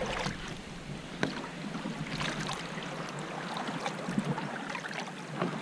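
Shallow water sloshing and lapping against a catamaran's fibreglass hull, with a few light knocks.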